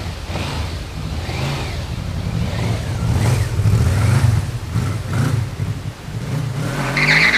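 Yamaha V-Max motorcycle's V4 engine running as the bike rides past close by and pulls away. The engine revs up, rising in pitch, in the last second.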